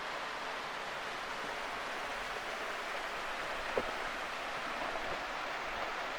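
Steady, even rush of a waterfall's falling water, with one faint click a little past halfway.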